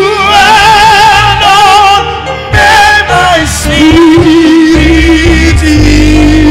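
Live gospel worship music: sung vocal runs with heavy vibrato over a band, then a long steady held note from about four seconds in.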